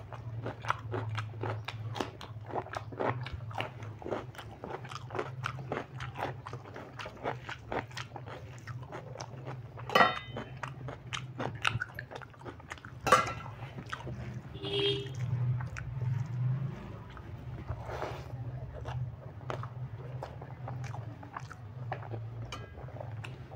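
A man chewing and biting a meal of rice and chicken curry eaten by hand, with quick wet mouth clicks and smacks all the way through and a couple of louder sharp sounds around the middle. A steady low hum runs underneath.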